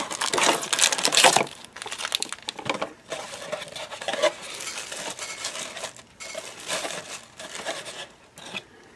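Plastic wrap and cardboard of a trading-card blaster box being torn open and handled. Loud crinkling and tearing for about the first second and a half, then quieter rustling and small taps as the packs are pulled out.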